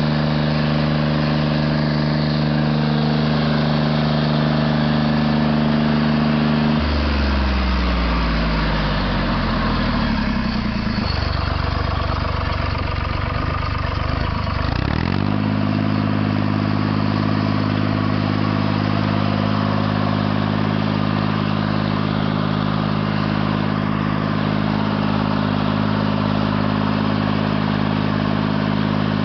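Stump grinder engine running steadily; about seven seconds in its pitch falls away and stays low for several seconds, then climbs back about fifteen seconds in and holds steady again.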